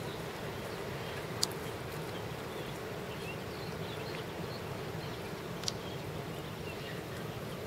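Steady rushing outdoor noise with faint bird chirps and two sharp clicks about four seconds apart.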